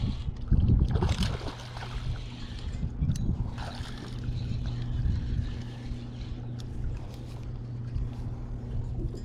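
A boat motor running with a steady low hum, over low wind rumble and a few light knocks.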